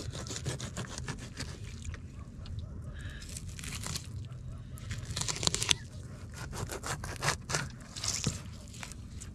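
Large knife cutting a mullet on a wooden board: the blade scrapes and crunches through scales, flesh and along the backbone in irregular strokes, with a few sharper scrapes a little past the middle.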